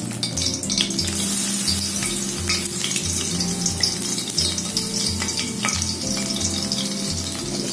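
Freshly pressed garlic sizzling steadily as it falls into hot cooking oil in a wok.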